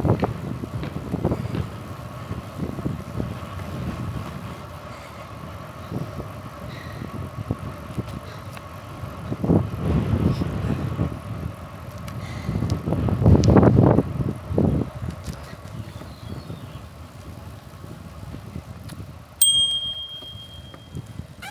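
Wind buffeting the microphone of a moving bicycle, in uneven gusts over a faint steady hum. Near the end a bicycle bell rings once, a sharp ding that fades over a couple of seconds.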